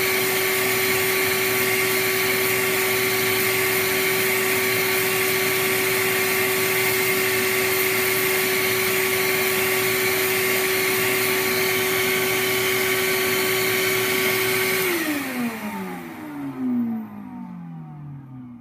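BKM 4 clarinet reed profiling machine running, its sanding wheel spinning while the attached vacuum cleaner draws off the cane dust: a loud, steady whir with a held hum. About fifteen seconds in, it shuts off and spins down, its pitch falling over a few seconds.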